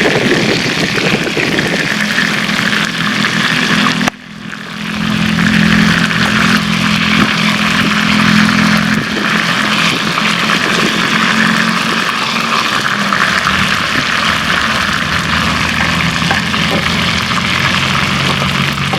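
Whole seasoned chicken frying in hot oil, a loud steady sizzle with a low steady hum beneath it. The sound cuts out abruptly about four seconds in and swells back up.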